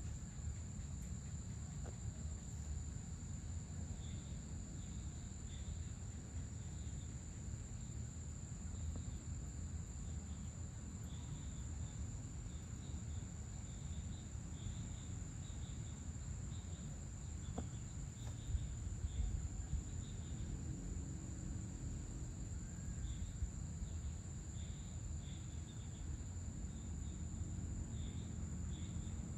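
Crickets and other insects calling: a steady high-pitched trill with scattered short chirps, over a low steady rumble.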